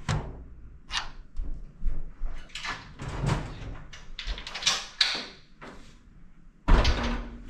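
Clicks, knocks and short scraping rattles from a collapsible K&J dog crate as the wheel pins are pulled and the wheels are worked loose, with a loud clank near the end.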